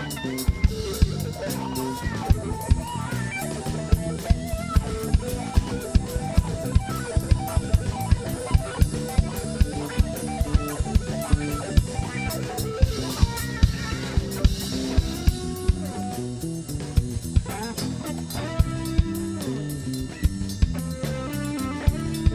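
Live band playing a song at a soundcheck: a drum kit keeping a steady beat with bass drum and rimshot or snare hits, under guitar.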